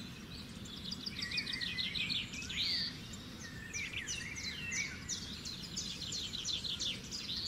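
Several birds chirping and singing, with rapid trills and quick downward-sweeping calls, over a steady low background noise.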